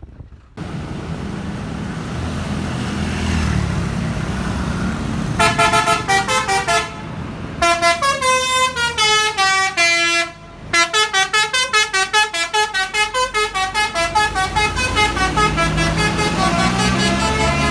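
A bus's telolet musical air horn playing a fast tune of short notes at changing pitches over the bus's engine. The horn starts about five seconds in, breaks off briefly twice, then runs on with several notes a second.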